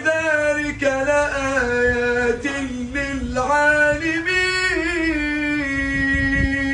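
A man's voice reciting the Qur'an in melodic, drawn-out tajweed style, winding through ornamented turns in pitch and then holding one long steady note near the end.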